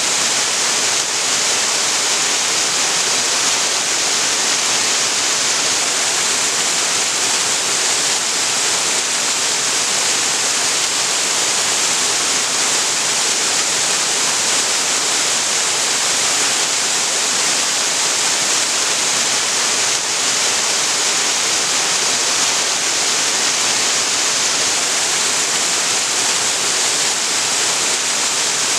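Waterfall on a creek: water falling and splashing in a steady, even rush that does not change.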